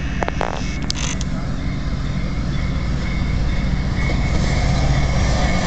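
Diesel-electric passenger locomotive, a VIA Rail F40PH-2 with its EMD 16-cylinder prime mover, running as it approaches, a steady low rumble growing louder. A few sharp clicks come in the first second or so.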